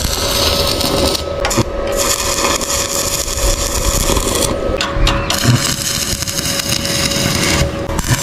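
Stick (electrode) arc welder crackling and hissing as it lays tack welds on a bicycle frame. The arc breaks off and restarts about four times.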